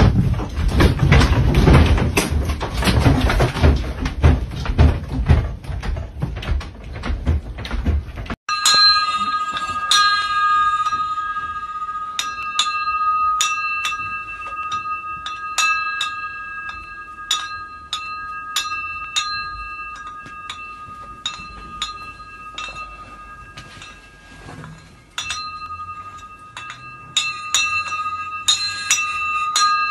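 For about the first eight seconds, a loud rumbling and rattling din. Then the glass globe shades of a ceiling lamp clink against each other and ring, struck again and again as the lamp swings, shaken by an earthquake.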